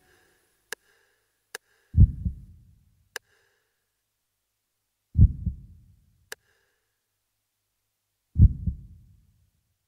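Closing sounds of the film's score: three slow, low heartbeat-like double thumps about three seconds apart, with a few sharp clicks between them.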